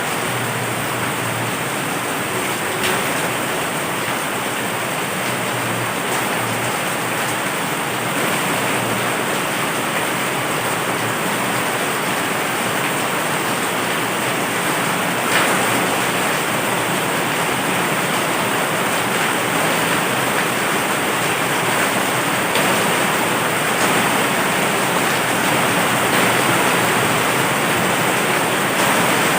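Heavy rain falling steadily, a dense even hiss with a brief louder tick about halfway through.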